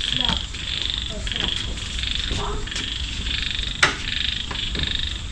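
A chorus of frogs calling: rapid pulsed croaks repeated over and over in short trains. A single sharp click comes about four seconds in.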